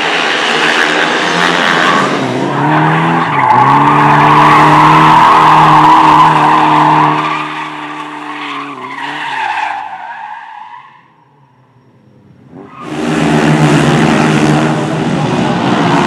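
Speedway motorcycles' single-cylinder engines racing. From about three seconds in, a rear-wheel-drive Lada saloon drifts, its engine held high and its tyres squealing. Near ten seconds its revs fall away and the sound dies briefly, then loud speedway motorcycle engines come back from about thirteen seconds in.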